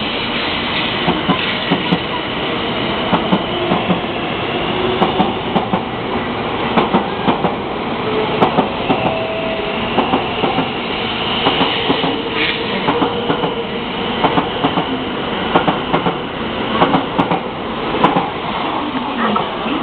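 Train running on rails: a steady rumble with many irregular clicks, and a faint steady whine in the middle.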